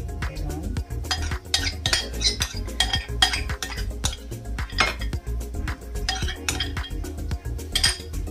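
A spoon repeatedly clinking and scraping against a ceramic bowl as scrambled egg is scooped out of it, in many quick irregular taps.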